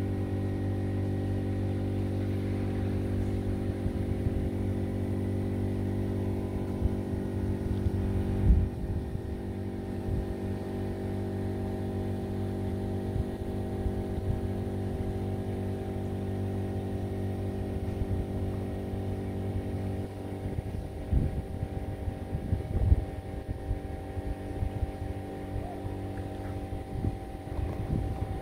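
A steady low machine drone with many even overtones, unchanging in pitch. Wind buffets the microphone in gusts in the later part, with a single thump about eight seconds in.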